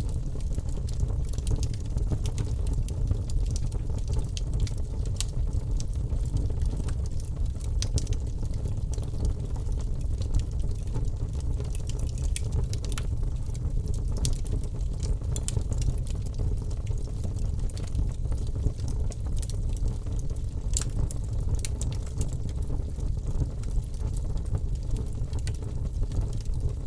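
Wood fire burning in a fireplace: a steady low rumble with irregular sharp crackles and pops.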